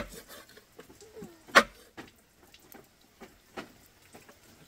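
Sharp knocks, three of them: one right at the start, a loud one about a second and a half in, and a quieter one about three and a half seconds in, with faint small clicks between.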